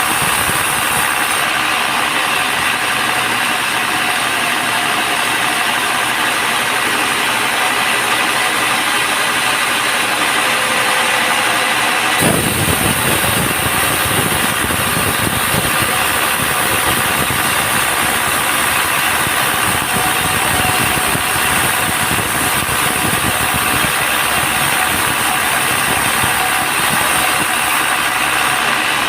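Band sawmill machinery running steadily, with the sound changing abruptly about twelve seconds in as a fuller, lower rumble comes in.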